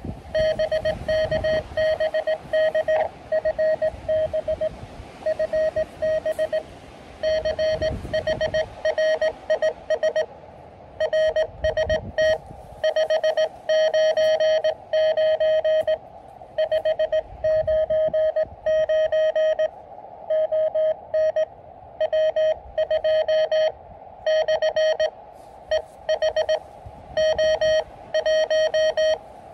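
Morse code (CW) from an Elecraft KX2 QRP transceiver: a steady beeping tone of about 600 Hz keyed on and off in dots and dashes, with short pauses between characters. Low rumbles of wind on the microphone come and go, strongest near the start and about 8 seconds in.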